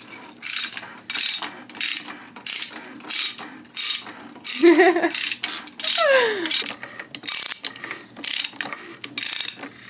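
Ratchet wrench being swung back and forth to run down a fastener on a BMW E46 during an oil change, clicking in short, regular strokes about every 0.7 seconds.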